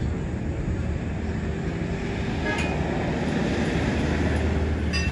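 A vehicle engine running steadily nearby: a low, even hum with traffic-like noise around it.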